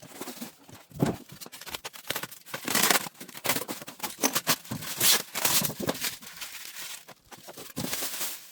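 Irregular scraping, rustling and knocks as a compressor fridge is shoved and shuffled into its cabinet opening over a wooden deck.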